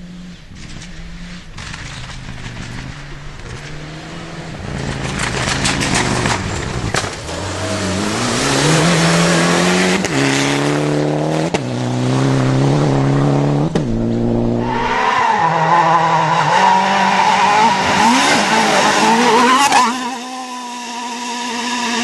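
Rally car engine at full throttle coming closer and louder, its revs climbing and dropping back with several quick upshifts in a row, then a steadier high engine note after it passes, dropping in level near the end.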